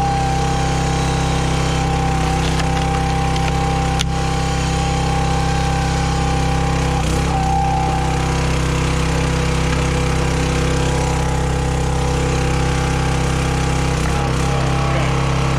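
Gas engine of a County Line hydraulic log splitter running steadily while the ram works. A higher whine comes in over the first few seconds and returns briefly twice later, and there is one sharp click about four seconds in.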